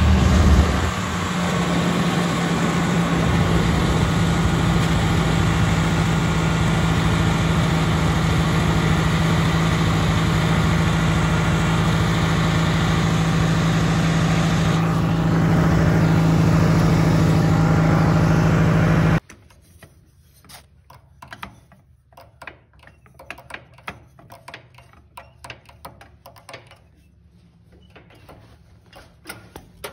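An engine dropping from a rev to a steady idle within the first second, then running steadily at one pitch. About two thirds of the way in it cuts off abruptly, leaving quiet with scattered light clicks and knocks.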